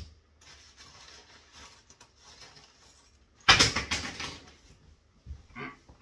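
Faint rustling as gear is handled and taken out of a belt pouch, then a loud, short rasp lasting under a second about three and a half seconds in.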